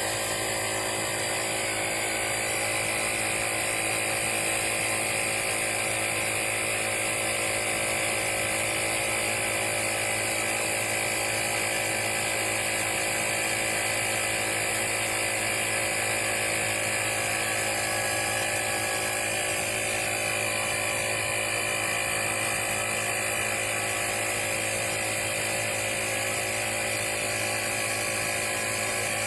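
Powools 150 PSI cordless portable tire inflator running steadily, its small piston compressor making a fast, even mechanical clatter as it pumps air into a tire.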